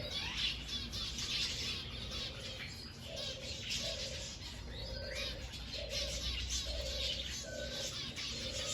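A mixed flock of birds calling: many quick high chirps and twitters over a short, low note repeated about every three-quarters of a second.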